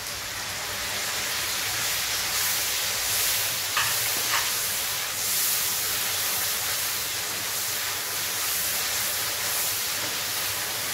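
Onions, bell pepper and sauces sizzling in a hot wok over a gas flame, a steady hiss. Two short taps about four seconds in.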